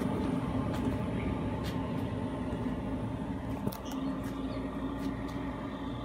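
Cheap 12 V 5 kW diesel air heater humming steadily through its shutdown process after being switched off, its fan still running. A few faint ticks sound over the hum.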